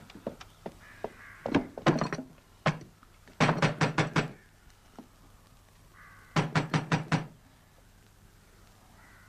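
A fist knocking on a wooden door: a couple of single knocks, then two quick runs of about five knocks each, a couple of seconds apart.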